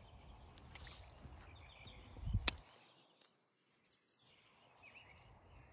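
Quiet pond-side ambience with faint bird chirps, and a sharp click about two and a half seconds in as the fishing rod and reel are handled, after which the sound drops nearly to silence for over a second.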